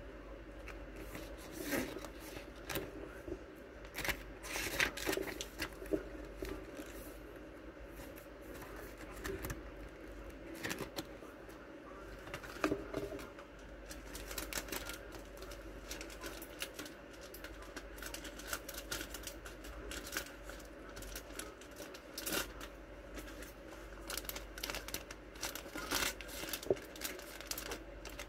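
Hands handling stationery in plastic packaging: crinkling plastic sleeves with scattered light taps and clicks, over a faint steady hum.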